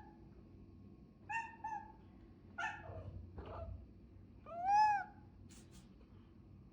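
A cat meowing softly: several short, high meows, then a longer meow that rises and falls about five seconds in.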